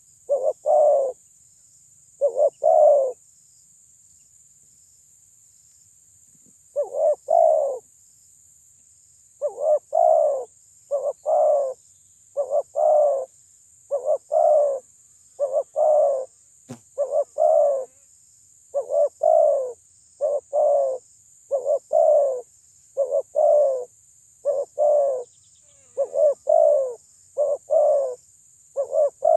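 Spotted dove (terkukur) giving its loud cooing song in short repeated phrases. After a pause of a few seconds the phrases come steadily, about one a second. A single sharp click falls about halfway through.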